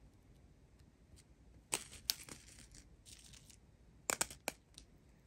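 Small plastic bags of diamond-painting drills being handled: short bursts of crinkling plastic, about two seconds in, fainter just after three seconds, and again just after four seconds.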